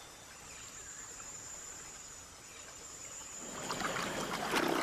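Rainforest ambience with a steady, high insect chirring, like crickets. About three and a half seconds in, a splashing, crackling water noise grows louder and peaks near the end.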